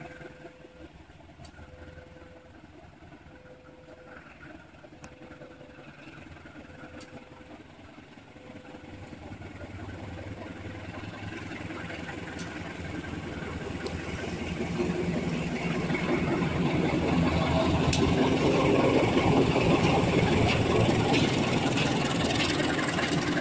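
Diesel locomotive hauling a passenger train, approaching and passing close by. Its engine and the running noise of the train grow steadily louder from about a third of the way in and are loudest near the end.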